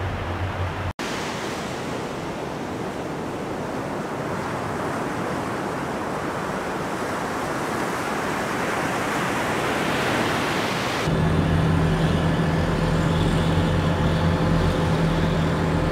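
Surf breaking and washing on a beach, an even rushing noise that slowly swells. About eleven seconds in it cuts suddenly to a tracked amphibious assault vehicle's engine idling with a steady low hum under the surf.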